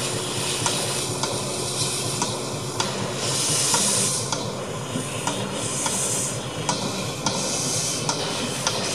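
Narrow-gauge steam locomotive moving slowly with its cylinder drain cocks open: a steady hiss of escaping steam with a faint beat about twice a second. There are two louder rushes of high hiss, about three and five seconds in.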